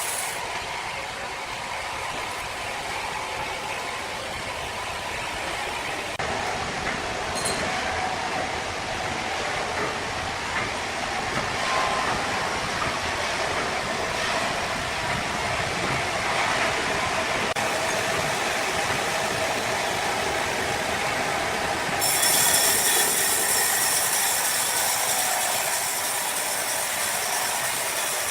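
Sawmill machinery running steadily as a saw cuts through timber, with the sound changing abruptly a few times.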